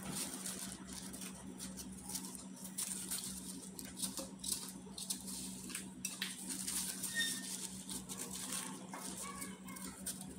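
Small knife cutting and paring an apple in hands wearing thin plastic gloves: irregular soft clicks, scrapes and plastic rustling. A steady low hum runs underneath.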